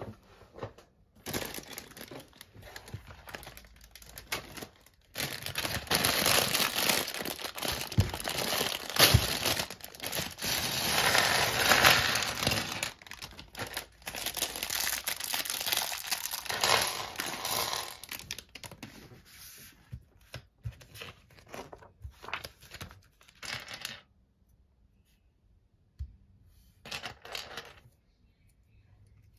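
Plastic bags of Lego pieces being torn open and crinkled by hand, a long stretch of rustling and crackling, with a few sharp clicks of bricks landing on the table.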